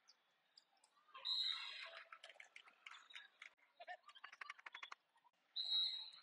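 Faint shrill referee's whistle blasts, once about a second in and again near the end, mixed with shouts from players. In between comes a quick run of sharp claps, as a rally ends and the point is scored.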